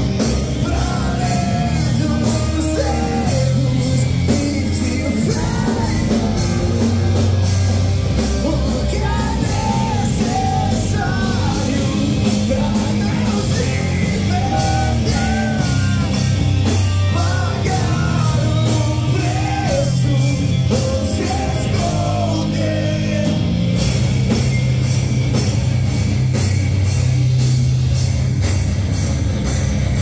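Live heavy rock band playing loud: distorted electric guitars, bass and a pounding drum kit, with a singer's voice over the music until about two-thirds of the way through, then mostly instrumental.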